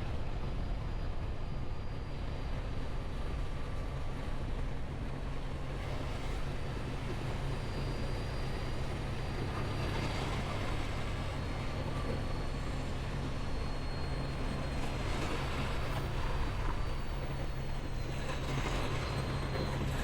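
A semi-truck running, with a steady low rumble and a faint, steady high whine over it.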